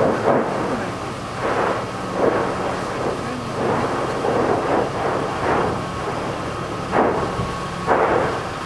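Lava fountains of the Fimmvörðuháls fissure eruption: a continuous noise broken by irregular louder bursts about once a second or so, as lava is thrown up in spurts.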